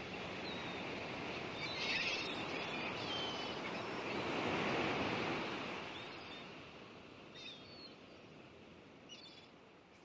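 Rushing, surf-like noise that swells about halfway through and then slowly fades out, with a few short bird calls scattered over it.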